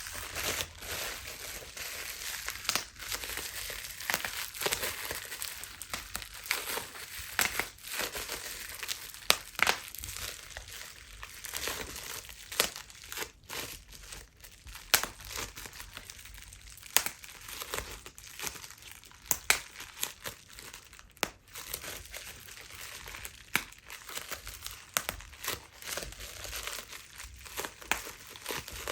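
Plastic bubble wrap being crinkled and squeezed by hand, with many sharp bubble pops at irregular intervals.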